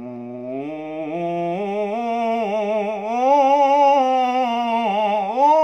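A young man's solo unaccompanied voice chanting an Islamic ibtihal (devotional supplication), holding one syllable in a long ornamented melisma. It grows louder about three seconds in.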